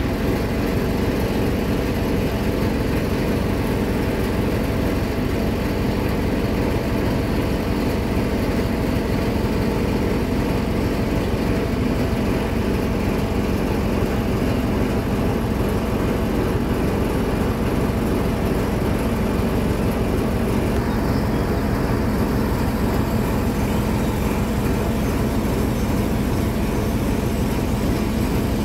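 An engine running steadily at idle, a low, even drone that does not change.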